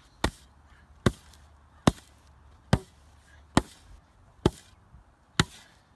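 A spade slapped down on loose dirt in a steady rhythm, seven sharp strikes a little under a second apart, packing and smoothing the fill over a filled-in hole.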